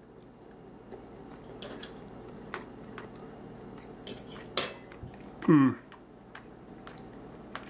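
Metal fork clinking and scraping on a ceramic plate: a few sharp clicks, the loudest about four and a half seconds in, followed by a short sound falling in pitch.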